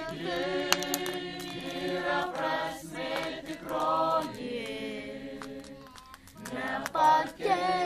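A choir singing together in long, held notes. The singing eases off briefly past the middle, then comes back stronger near the end. Thin, sharp clicks are scattered through it.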